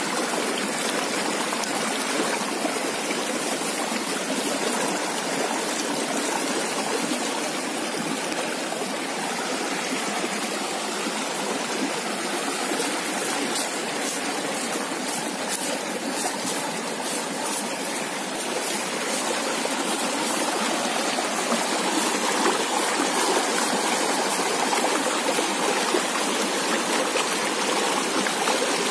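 Steady rushing of flowing water from a stream or river, unchanging throughout. A run of rapid, high-pitched ticks joins it for several seconds in the middle.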